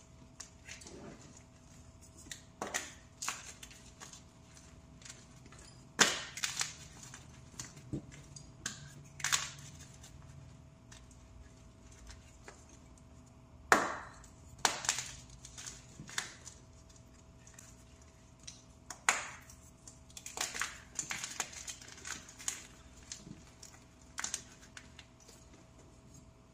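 Freshly made plain powder blocks being crushed by hand: irregular crisp crunches and crumbling crackles, with a few louder snaps as pieces break.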